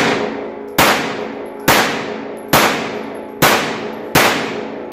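Glock 17 Gen 5 MOS 9mm pistol fired at a steady pace, about six shots a little under a second apart. Each crack rings and echoes off the walls of an indoor range.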